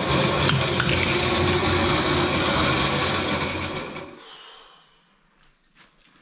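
Electric drain-cleaning machine's motor running and spinning its spiral cable with a steady hum. It is switched off about four seconds in and winds down to quiet within a second.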